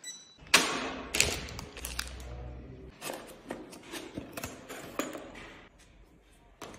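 Handling of a plastic laser level and its box: a run of clicks and knocks as it is packed away, the sharpest knock about half a second in, falling quiet near the end.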